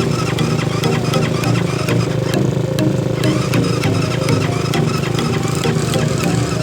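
Trail motorcycle engine running steadily.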